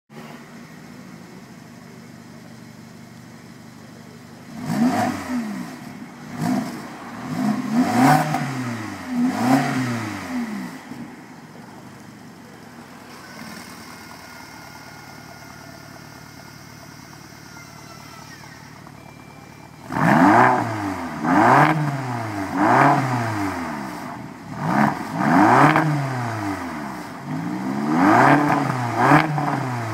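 BMW X5M twin-turbo V8 through a Meisterschaft aftermarket exhaust, idling and blipped in free revs: about four quick revs some four seconds in, back to idle, then a louder run of about seven revs from around twenty seconds in. The first set is with the exhaust valves closed and the louder second set with them open.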